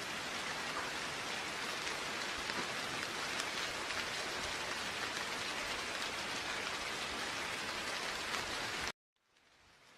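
Steady rain falling, a dense even patter of raindrops with no thunder. Near the end it cuts off suddenly to silence, then slowly fades back in.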